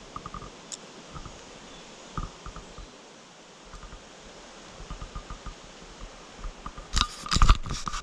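Close handling noise from the angler's hands, clothing and gear against the camera: scattered light crunches and scrapes over a faint steady hiss, with a cluster of loud crunches and knocks about seven seconds in.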